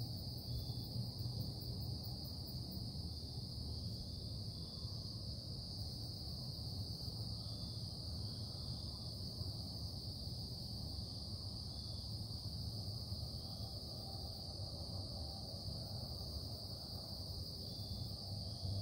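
Steady industrial production noise: a constant low drone with a steady high-pitched hiss over it, unchanging throughout, and a few faint short chirps now and then.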